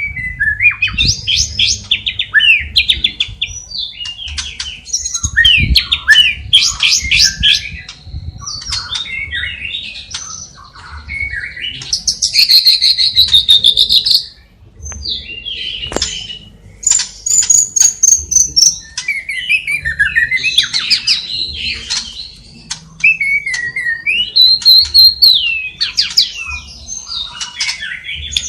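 White-rumped shama singing a long, varied song of clear whistles, fast rattling trills and chattering phrases, mixed with mimicked sparrow and lovebird calls, with a short lull about halfway through.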